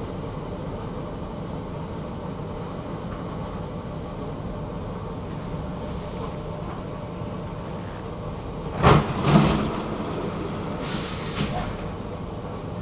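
Stockholm tunnelbana train running, heard from inside the carriage as a steady low rumble. About nine seconds in come two loud clattering knocks half a second apart, then a brief hiss near the end.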